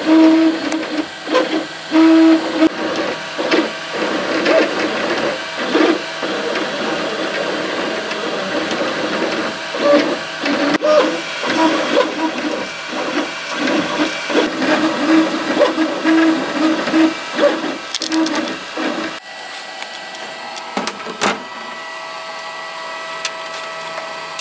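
Dremel 3D20 Idea Builder 3D printer printing: its stepper motors whine and buzz in shifting tones, starting and stopping as the print head moves. About 19 s in the motion stops, and a quieter steady hum remains, with a few clicks.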